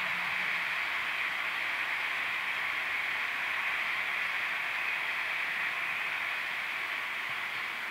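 Steady rushing hiss of Märklin H0 model freight wagons rolling on C-track, with no clear clicks.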